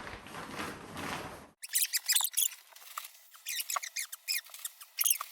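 Camping air pad being deflated: a soft hiss of escaping air, then from about a second and a half in a quick run of short, high squeaks.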